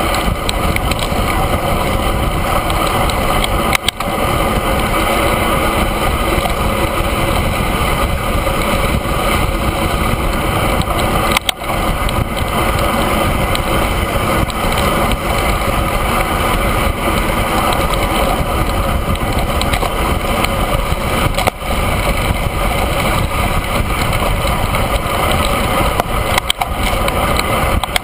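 Steady wind rushing over the microphone of a handlebar-mounted camera on a road bike riding at speed, with a few brief dips.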